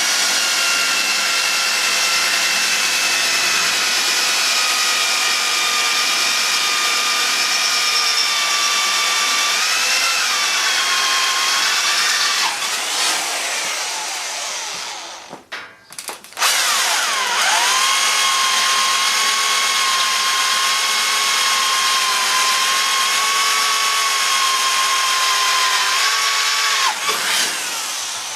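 Handheld electric power drill drilling metal, its motor running with a steady high whine that sags slightly under load. About 13 seconds in it winds down and stops briefly, then spins up again and runs steadily. It winds down once more near the end.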